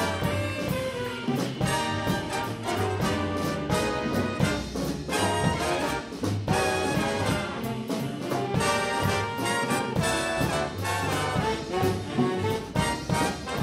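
Big band jazz played live: the trumpet and trombone section leads over saxophones, with bass and drums keeping a steady swing.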